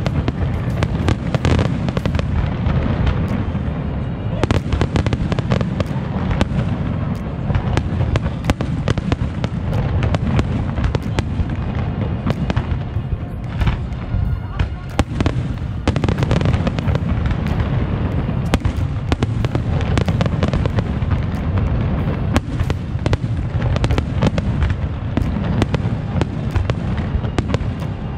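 Fireworks display: aerial shells bursting in a rapid, unbroken barrage of bangs over a steady low rumble.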